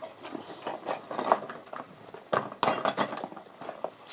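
Light clicks, taps and scratches of a drawing compass and pencil being handled and worked on paper, with the loudest clatter about two and a half seconds in.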